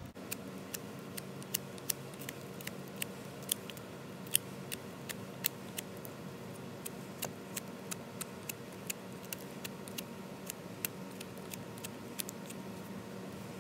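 Victorinox Fieldmaster Swiss Army knife blade whittling into a dry pine root to check it for fatwood. Each cut gives a sharp click, about two or three a second, irregularly spaced.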